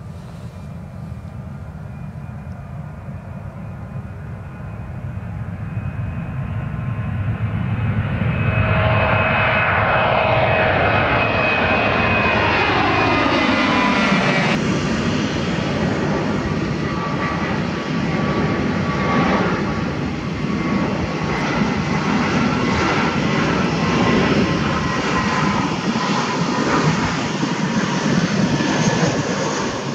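Boeing 737 jet engines spooling up on the takeoff roll, growing louder over several seconds, then passing with a falling whine as the airliner goes by. About halfway through, the sound cuts abruptly to the steady jet noise of an Airbus A320 on landing approach.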